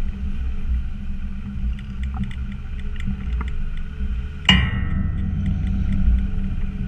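Land Rover Discovery's Td5 five-cylinder turbodiesel running under load on a rough off-road track, with small rattles over the rumble and one sharp clunk about four and a half seconds in as the vehicle jolts.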